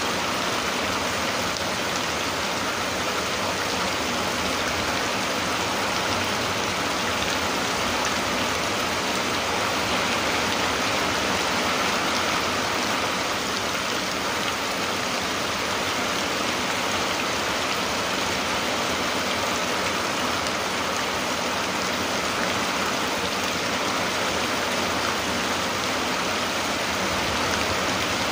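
Steady rain falling: a constant, even hiss with no single drops or thunder standing out.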